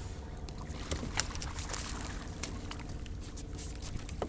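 Steady low hum on a bass boat with scattered light splashes and knocks, most about a second in, as a largemouth bass is brought in.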